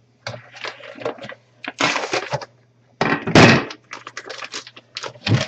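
Plastic packaging crinkling and crackling in irregular bursts as it is handled, with a louder rustle about three seconds in.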